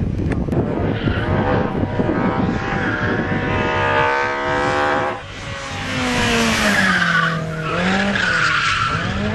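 Hillclimb race car engine revving hard, its note rising steadily. It breaks off briefly about five seconds in, then sounds again, sliding down and back up near the end.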